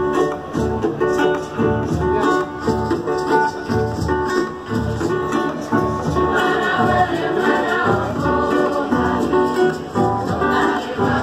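Catholic entrance hymn: singing with strummed acoustic guitars and a tambourine over a steady beat.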